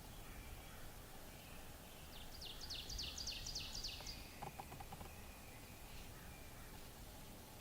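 A songbird sings a fast trill of about ten high, quick down-slurred notes about two seconds in, followed by a few short lower notes, over a steady low background hiss and rumble.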